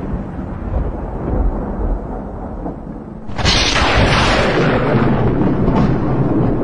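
Thunder during a lightning storm: a low rumble, then a sudden loud crack about three and a half seconds in that keeps rolling to the end.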